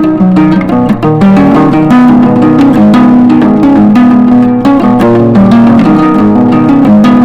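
Background music led by a plucked guitar, playing a quick run of notes.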